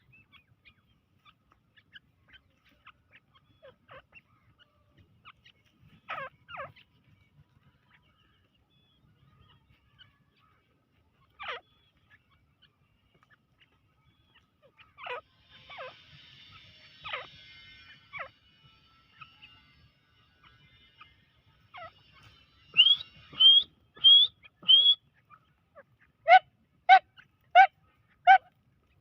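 A grey francolin (the Deccani teetar) calling: faint, scattered notes at first, then in the last third four loud rising whistled notes followed by five sharp, loud calls in quick succession.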